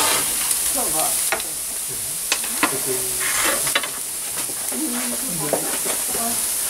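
Wood-fired oven: a steady sizzling hiss with the crackle of the wood fire, and a few sharp pops.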